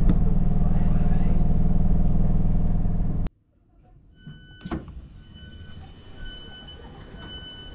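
Class 313 electric multiple unit heard from inside, running into the platform with a steady low hum and rumble that cuts off suddenly about three seconds in. Then a single clunk and a repeating high electronic beep from the train's door as it is opened.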